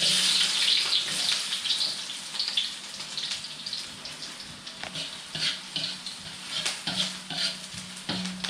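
Chopped garlic and aromatics hitting hot oil in a wok, sizzling loudly at once and frying on, with a metal spatula scraping and tapping the wok as they are stirred.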